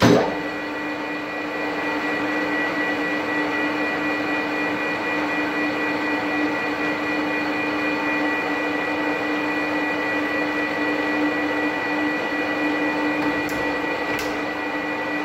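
Manual metal lathe running at low speed with a steady mechanical whine, geared for cutting a coarse 4.5 TPI thread on a 4140 steel bar. A couple of faint light ticks come in near the end.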